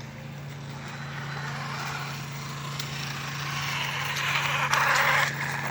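Arma Outcast 6S RC monster truck's electric drivetrain running, a steady low hum under a rushing mechanical noise that grows louder, strongest about four to five seconds in. The owner puts the clicking in this drivetrain down to a faulty center differential.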